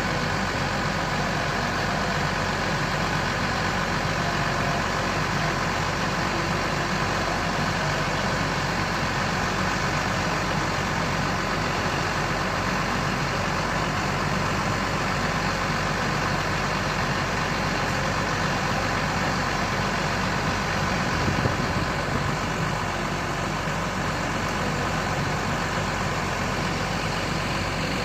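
Diesel engine of a remote-controlled water-well drilling rig running steadily.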